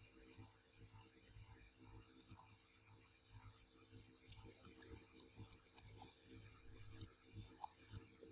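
Faint, sharp clicks of a computer mouse, about a dozen, scattered irregularly, over a low steady hum.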